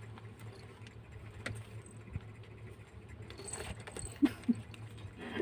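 Kittens scuffling in play, with a small collar bell jingling lightly and a few soft thumps about four seconds in, over a steady low hum.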